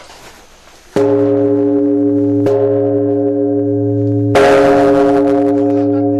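Large Korean bronze temple bell (beomjong) struck twice with a swinging wooden log, about a second in and again some three seconds later. Each strike rings on in a long, deep hum with higher tones above it, still sounding between and after the strokes.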